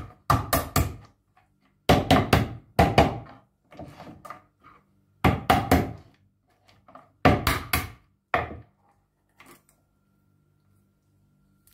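A wooden rolling pin striking blue crabs on a wooden cutting board: sharp knocks in quick groups of three or four blows, five groups over about nine seconds, then they stop.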